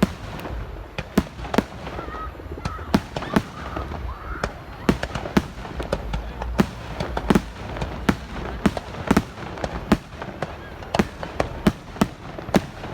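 Fireworks going off in rapid, irregular succession: many sharp bangs and pops of varying loudness, several to a second at times, over a low background rumble.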